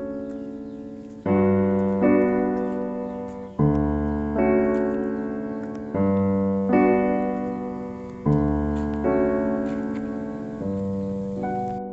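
Slow piano music: sustained chords struck about every two and a half seconds, each one dying away before the next.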